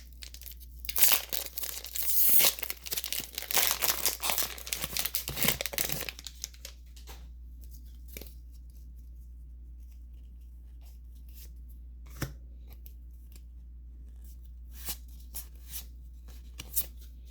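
Foil Pokémon booster pack wrapper being torn open and crinkled for about six seconds, then a few scattered light clicks and taps as the cards are handled.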